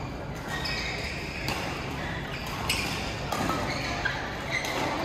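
Badminton rally: rackets hitting the shuttlecock, several sharp hits about a second apart, with the reverberation of a large sports hall.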